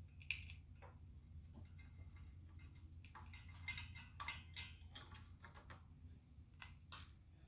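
Faint, irregular clicks and ticks of a screwdriver working out the last screw that holds a ceiling fan blade, with small metal parts knocking, over a low steady hum.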